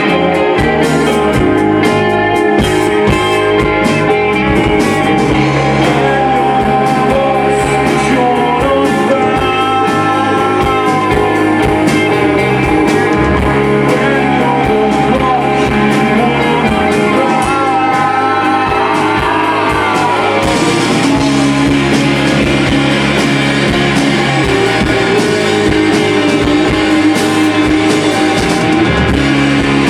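Loud rock music with guitar and a singing voice, running steadily and growing fuller and brighter about two-thirds of the way through.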